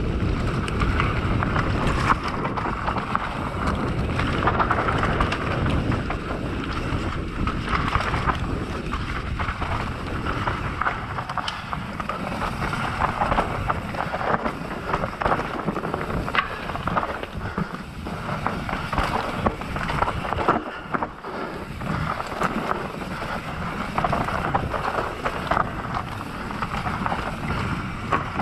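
Enduro mountain bike descending a rough forest trail at race speed: wind rushing over the microphone and tyres rolling over dirt and rock, with frequent knocks and rattles from the bike as it hits bumps.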